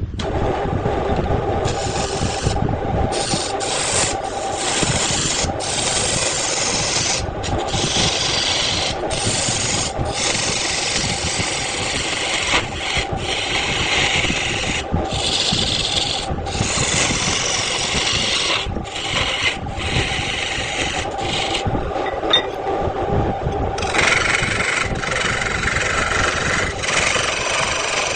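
Wood lathe running while a tool scrapes the spinning wood in repeated passes. A steady motor hum runs under a rasping hiss that breaks off briefly many times, with one longer pause about three quarters of the way through.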